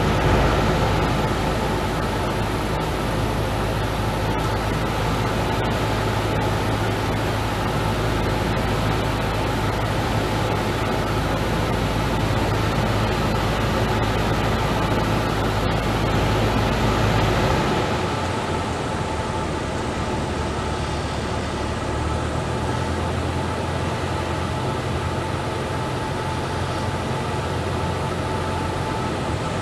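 Cessna's piston engine and propeller droning steadily inside the cockpit, with air rushing over the cabin, while the plane flies the final approach to a runway. About two-thirds through, the deep part of the drone changes and the sound eases a little, then holds steady as the plane nears the runway.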